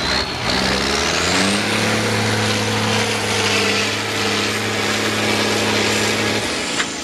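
LIAZ trial truck's diesel engine revving up hard and held at high revs under heavy load as the truck climbs a steep muddy bank out of a water-filled pit, with a high whine rising along with it. The revs drop away about six seconds in.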